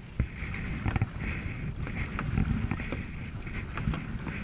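Canoe being paddled across a choppy lake: paddle strokes and water splashing and lapping against the hull, with wind buffeting the microphone and occasional light knocks.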